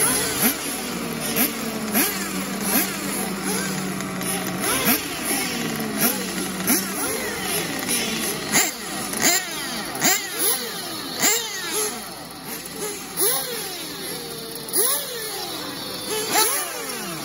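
Small two-stroke nitro engines of 1/8-scale off-road RC buggies running in the pits, their throttles blipped over and over in quick rising-and-falling revs, several engines overlapping. One engine holds a steady note for the first several seconds before the revving takes over.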